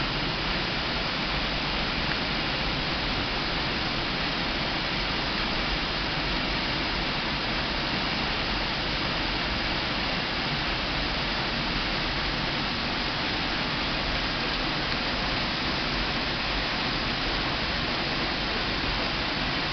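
Steady rush of a small waterfall pouring off a rock ledge and splashing into the pool below, with water dripping from the overhang.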